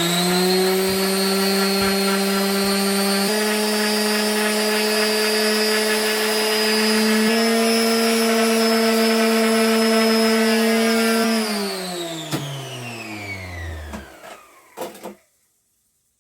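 Electric sander starting up and running steadily on wood, its pitch stepping slightly a couple of times, then switched off about eleven seconds in and winding down, with a sharp knock and a few clicks as it stops.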